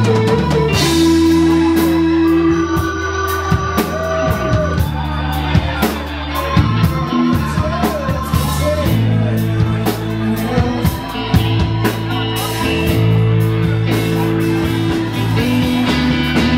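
Live rock band playing: electric guitar holding long sustained notes over bass and drums, with frequent cymbal and drum hits.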